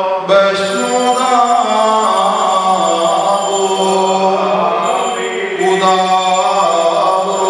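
Liturgical chanting sung into a microphone: long held notes that glide from one pitch to the next, over a steady low drone.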